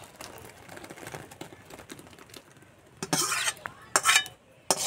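Curdled milk, chhena curds in whey, pouring from a steel bowl into a cloth-lined bowl with a soft splashing. A metal spoon then scrapes the last curds out of the steel bowl in three short, loud scrapes near the end.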